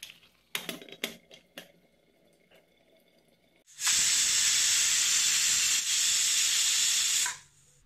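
Aluminium pressure cooker letting off steam through its weight valve: a loud, steady hiss lasting about three and a half seconds that starts and cuts off sharply, the cooker's whistle as it reaches pressure. Before it, a few light metal clicks as the lid is closed.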